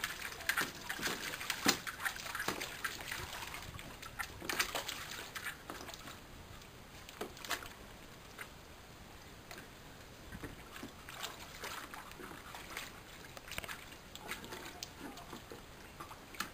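Water splashing and sloshing in a plastic paddling pool as a dog plays with a boomerball in it: irregular splashes, busiest over the first few seconds, quieter in the middle, and picking up again in the second half.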